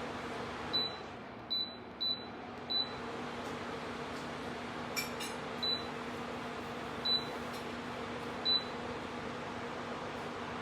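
Dreo tower fan running with a steady airy hum while its control panel gives seven short, high beeps as settings are changed: four in quick succession in the first three seconds, then three more spaced out. A couple of faint clicks come about five seconds in.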